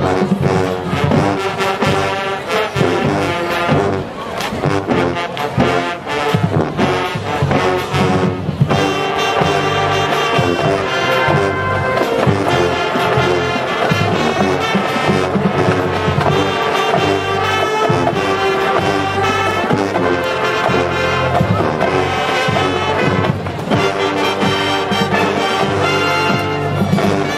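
Marching band playing, brass over drums. The first several seconds are busy with drum hits; about nine seconds in the horns move into long held chords over a steady beat.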